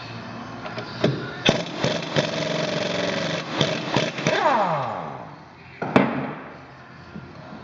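Air impact wrench working the rear axle nut loose: a motor run that holds one pitch for about two seconds, then winds down with a falling whine, amid several sharp metal clanks.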